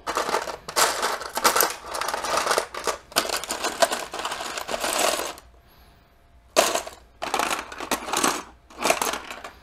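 Loose Lego pieces clattering and clicking against each other and the clear plastic compartment tray as a hand rummages through them. It comes in two spells, with a short pause a little past halfway.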